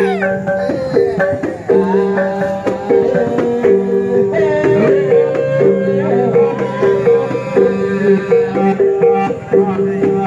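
Dance music on a plucked string instrument, quick repeated notes over steady low held tones.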